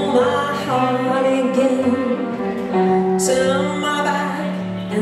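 Live blues band music: a hollow-body archtop electric guitar and an electric keyboard playing together.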